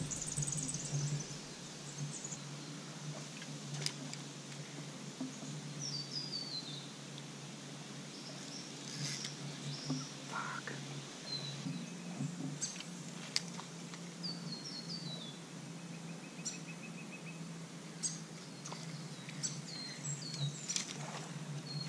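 Birds calling: a short run of notes stepping down in pitch, heard several times, with a few sharp clicks in between.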